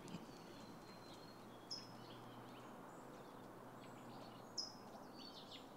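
Faint outdoor ambience with bird chirps: two short, sharp, high falling chirps about three seconds apart, and a few fainter thin twitters.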